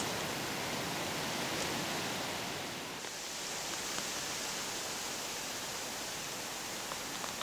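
Steady, even hiss of outdoor background noise with no distinct events, and a couple of faint ticks near the end.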